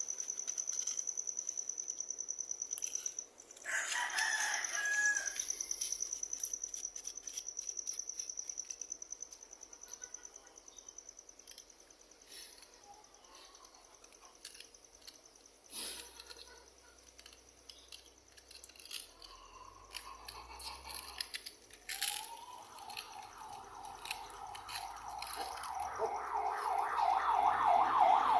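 A rooster crowing over a steady, high-pitched pulsing buzz. From about two-thirds of the way in, an ambulance siren rises and grows louder toward the end.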